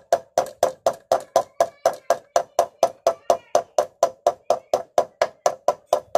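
Hammer tapping a new ball bearing into a motorcycle wheel hub, light blows worked around the bearing's edge, about four a second, each with a short metallic ring. The bearing is being seated in place of a worn one that made the bike wobble.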